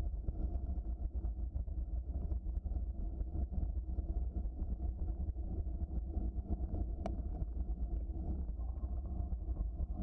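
Steady low rumble of a bicycle rolling along a trail, tyre and frame noise with many small rattles, and one sharp click about seven seconds in.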